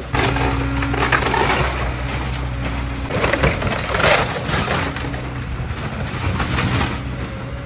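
Caterpillar hydraulic excavator's diesel engine running steadily while the machine tears down a house. Repeated crashing and cracking of breaking wood and debris is heard, with the loudest crashes about three to four seconds in.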